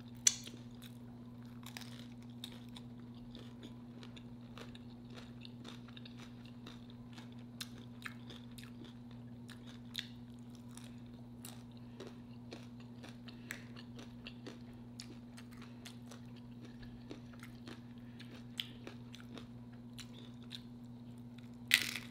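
Close-up mouth sounds of chewing and crunching homemade nacho chips topped with shrimp, crab and Alfredo sauce: many small crisp crackles, with a sharper crunch just after the start and another near the end. A steady low hum runs underneath.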